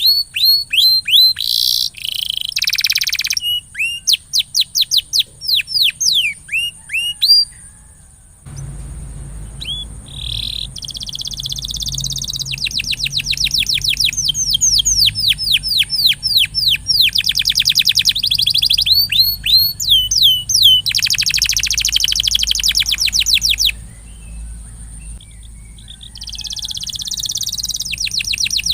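Domestic canary singing in rapid rolling trills of quickly repeated sweeping notes, with a brief pause about eight seconds in. A low background hum comes in just after the pause.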